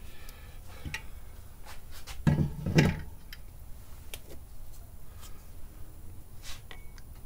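Metal clutch parts, a pressure plate and friction disc, being handled and set down on a wooden workbench: scattered light clicks and knocks, with two louder thumps a little after two seconds in.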